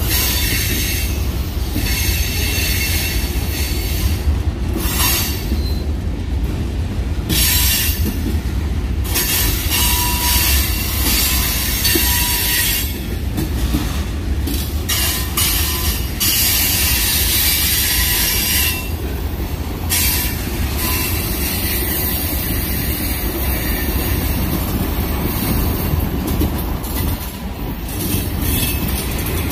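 Freight train cars rolling past with a steady low rumble, wheels squealing at a high pitch on and off, with occasional clatter.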